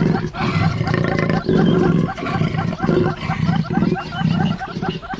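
An animal making repeated low, rough grunting calls, about two a second.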